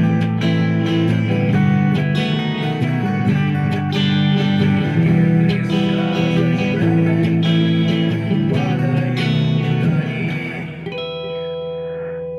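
Guitar strumming the closing bars of a rock song in an acoustic arrangement. About eleven seconds in the strumming stops on a final chord that is left to ring out.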